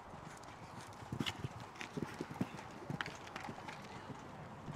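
Hoofbeats of a grey horse cantering on a sand arena surface. The beats come as an uneven run, loudest between about one and three and a half seconds in.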